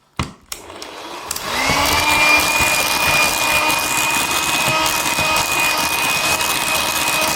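Electric mixer beating cake batter after an egg has been added: after a couple of clicks it starts up, speeds up to a steady high whine about a second and a half in, and runs on steadily.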